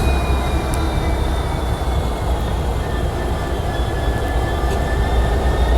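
Freight train rolling past with a steady heavy low rumble, and a thin high whine of wheel squeal running through it.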